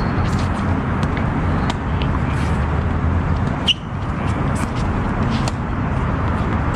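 Steady outdoor rumble and hiss, with scattered light clicks and one short high squeak about four seconds in.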